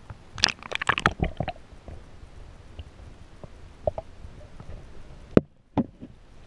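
Water knocking and clicking against a camera's housing held underwater: a quick cluster of knocks in the first second and a half, a few scattered ones after, and a sharp knock about five seconds in, after which the sound cuts out for a moment.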